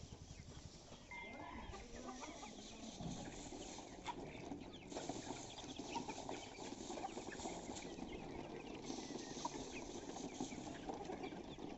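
Chickens clucking, many short overlapping calls at a low level.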